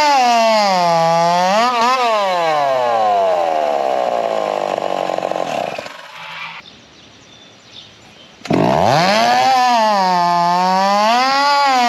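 Two-stroke 490 race chainsaw on a 20% alcohol–nitromethane mix, revving in quick up-and-down swells. About two seconds in, the revs start to fall away steadily, and near six seconds the saw stops. After a short pause it is running again at about eight and a half seconds, revving up and down.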